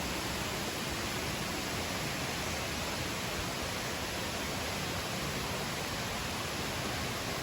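Steady, even rush of flowing water from the waterfall and stream, with no change in level.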